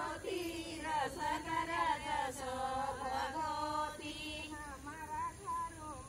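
A group of women singing a folk dance song together in a chant-like melody.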